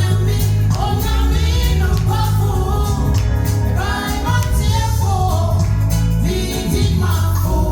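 Live gospel music: women singing over a band with strong bass and drums.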